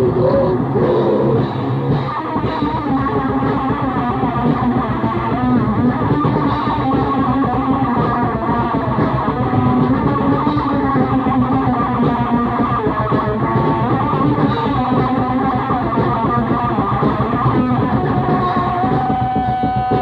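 Grindcore played on distorted electric guitar and bass, from a lo-fi 1980s demo tape: a dense, unbroken wall of sound with a dull, muffled top end. About a second before the end it settles into held notes.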